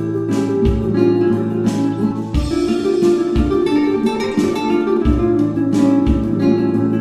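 Background music: a relaxed acoustic guitar instrumental over a low drum beat.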